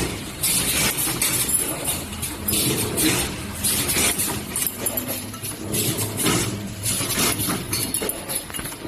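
Steel ring bending and welding machine at work: a low steady running noise with irregular metallic clinks and short noisy bursts every second or so.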